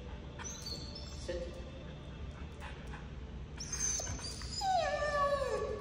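Siberian husky whining: short high whines about half a second in, then a long whine near the end that slides down in pitch. The whining of an anxious dog that wants to get back to his brother.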